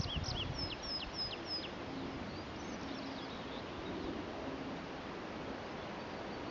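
A small songbird singing a short, quick phrase of high chirps and falling notes in the first two seconds, with a few fainter notes after. The bird sings over a steady outdoor background hiss.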